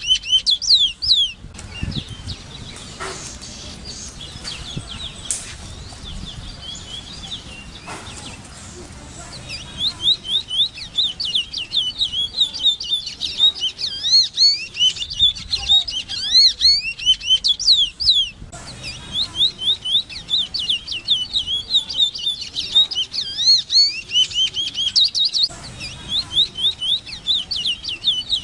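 Large-billed seed-finch singing a fast warbling song of high whistled notes that sweep up and down in long phrases. The song stops about a second in and resumes about ten seconds in, with brief breaks between later phrases.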